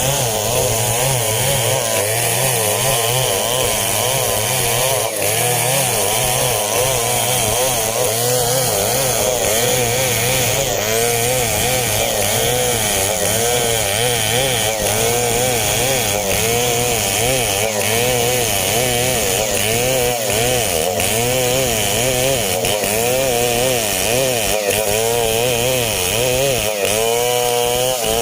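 STIHL chainsaw running at high revs, cutting coconut palm wood, its engine pitch wavering up and down continuously as the chain bites under load.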